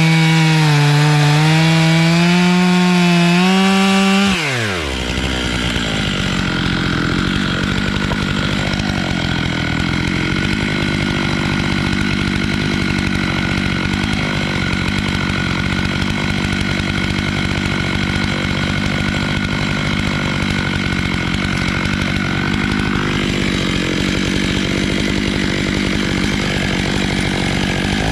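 Stihl MS 881 two-stroke chainsaw on an Alaskan chainsaw mill running at high revs, its pitch wavering as it pulls through black walnut. About four seconds in the throttle is released and the engine falls to a steady idle. The revs climb again at the very end.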